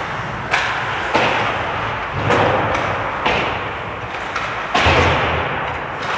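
Ice hockey play sounds in an arena: about five sharp knocks and thuds of sticks and pucks, each followed by a short scrape or echo, over a steady rink din.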